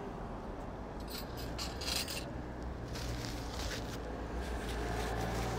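A paper napkin rustles and rubs in short scratchy spells as hands are wiped. Under it runs the low steady hum of street traffic, growing a little louder toward the end.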